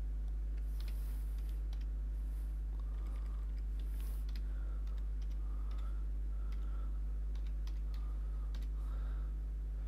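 Keys tapped on a computer keyboard as a password is typed: faint, irregular clicks over a steady low hum.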